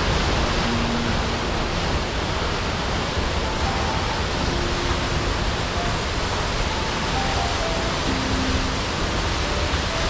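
Loud, steady rush of water, as from a waterfall or fast mountain torrent, with a few soft sustained music notes faintly beneath it.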